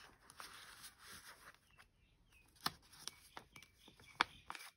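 Paper handling: a folded card-stock card rustling and sliding into a paper pocket in a handmade journal, with several light paper ticks and two sharper clicks, the louder near the end.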